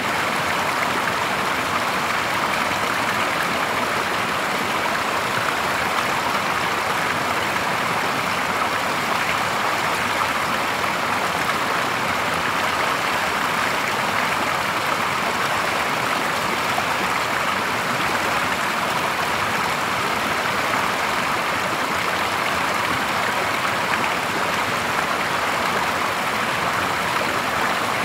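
Water pouring from a pipe and spilling over a low log into a shallow stream pool: a steady splashing rush of running water.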